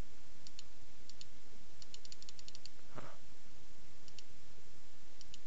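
Computer mouse button clicked over and over, some single clicks and a quick run of about eight around two seconds in, on a remove button that does not respond. One short soft noise about three seconds in, over a steady background hiss.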